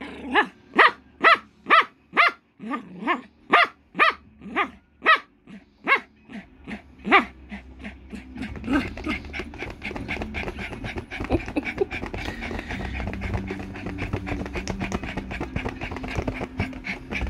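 Poodle barking in a quick, even run of short barks, about two a second, for the first seven seconds or so. The barks then stop and softer, jumbled sounds of the dog at play follow.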